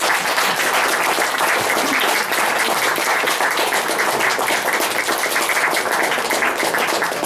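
An audience applauding, a steady dense clapping of many hands.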